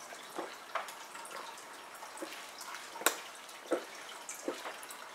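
A person chugging soda straight from a two-liter plastic bottle. The liquid and air glug in the bottle with gulps at irregular intervals of about half a second to a second. There is one sharper click about three seconds in.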